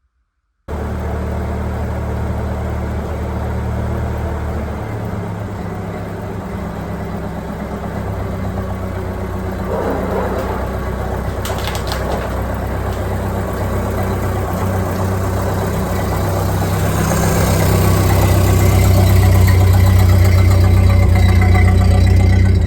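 1931 Ford Model A's four-cylinder engine running as the car drives, its steady low note getting louder toward the end, with a short clatter a little past halfway.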